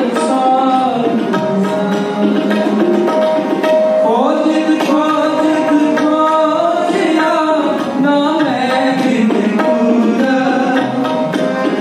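Sikh kirtan: two harmoniums play sustained chords and melody, with tabla strokes keeping the beat. A voice sings the shabad, gliding up in pitch about four seconds in.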